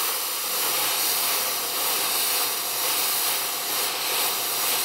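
Plasma cutter torch gouging a metal plate in cut mode at 20 amps: a steady, loud hiss of the arc and compressed-air jet blowing molten metal out of the groove.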